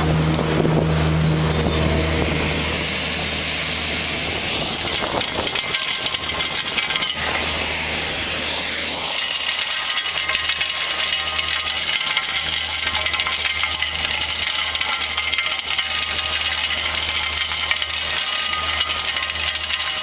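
Railway track vacuum-cleaning machine running: a steady engine hum under a continuous rushing suction noise, with a dense patter of small hard clicks. The hum eases slightly a few seconds in.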